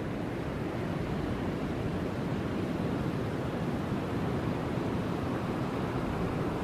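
Steady wind outdoors, a low, even rush of noise.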